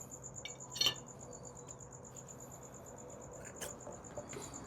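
Rear sprocket carrier of a Honda Monkey being lifted off the wheel hub: a light metallic clink about a second in and a few faint knocks later. A high, rapid, evenly pulsing chirp runs on underneath.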